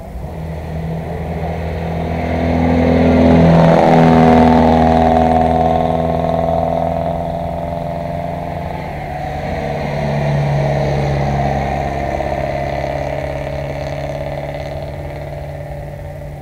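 Classic car engines going by at speed: one swells to its loudest about four seconds in and drops slightly in pitch as it passes, and a second swells past around ten seconds in.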